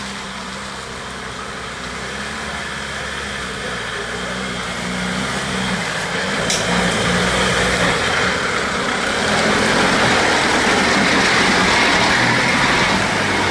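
Land Rover Defender 110 engine running as the 4x4 drives slowly along a muddy woodland track toward the listener and passes close by, its engine note and tyre noise growing steadily louder.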